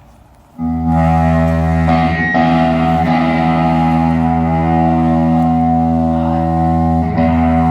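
Amplified electric guitar comes in about half a second in and holds one chord ringing steadily through the amp, with a brief break just after seven seconds.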